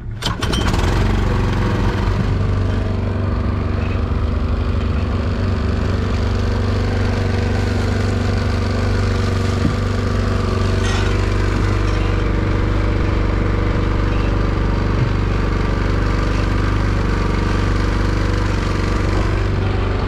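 Small fishing boat's motor running at a steady, unchanging speed, a constant engine hum.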